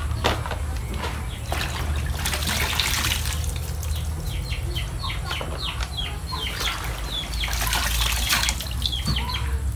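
Water splashing and streaming back into a plastic basin as handfuls of wild ground mushrooms are squeezed and rinsed, louder in two swells.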